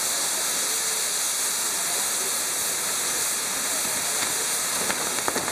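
Steady hissing rush of the gerbs (fountain fireworks) driving a spinning Maltese ground-firework wheel, with a few sharp crackles near the end.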